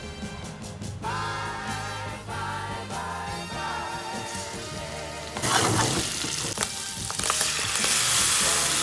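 A pop song with singing plays, then about halfway in a loud sizzle from a hot frying pan breaks in, twice, drowning the music.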